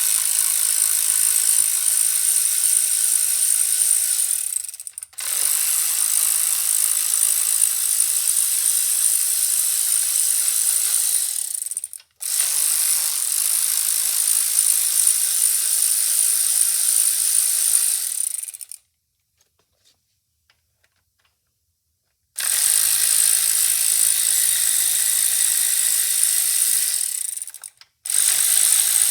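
ACDelco cordless electric ratchet running under its motor in long, steady bursts of several seconds, stopping briefly between them, with one pause of about three and a half seconds a little past the middle.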